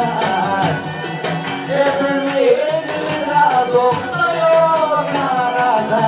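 Albanian pop-folk music: a sung melody with gliding pitch over a steady accompaniment.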